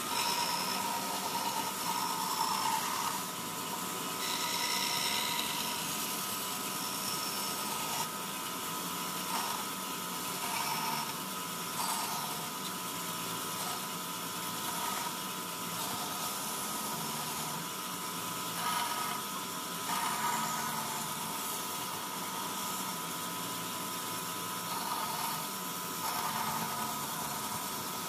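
Band saw running with a steady high hum, its blade cutting through wooden blanks in short louder spells every few seconds as the pieces are fed and turned.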